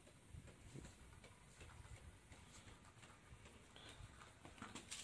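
Near silence: room tone with a few faint, scattered small ticks and taps.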